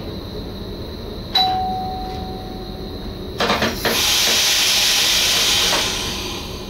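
Inside the cab of an NS SGM Sprinter electric train, a single chime rings and fades over about a second and a half. After a few clicks comes a loud hiss of air that lasts about two seconds and then tails off.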